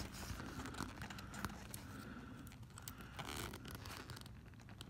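Faint scratching and a few light clicks of pliers gripping and tugging at a plug set in a car tire's tread.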